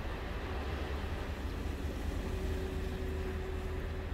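Steady heavy rain with a constant low rumble, heard from behind rain-spattered glass. A faint steady hum comes in about two seconds in.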